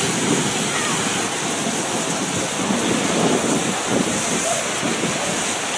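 Steady rushing noise of sea surf washing on the shore.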